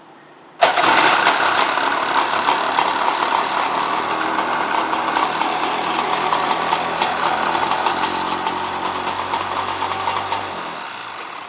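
Polaris SLH 700 jet ski's two-stroke twin engine starting abruptly and running steadily for about ten seconds, then shut off and dying away near the end, demonstrating that the machine runs.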